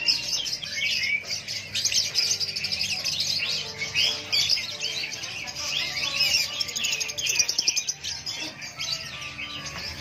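Many caged lovebirds chirping at once: a dense, continuous chatter of fast, high chirps.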